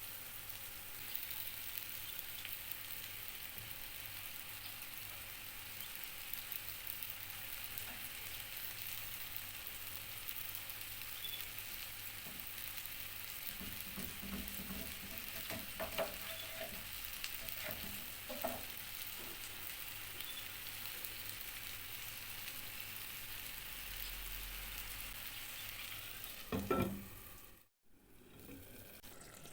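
Food sizzling steadily as it fries in oil in a pan, with a few knocks of a utensil against the pan around the middle. The sizzle cuts out briefly near the end.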